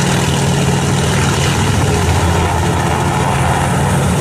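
Sikorsky S-58 helicopter flying low past: a steady, loud drone of rotor and engine.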